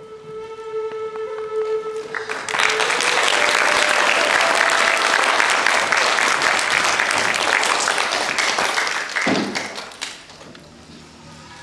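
Audience applauding loudly for about seven seconds, starting a couple of seconds in and dying away shortly before the end. A held musical note plays under the first two seconds, and faint music sounds again after the applause.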